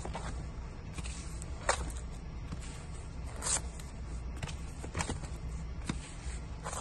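Vinyl LP records in clear plastic sleeves being flipped through by hand on a shelf: a string of short slaps and scraping swishes, roughly one a second, as each album is tipped forward against the next. A steady low hum runs underneath.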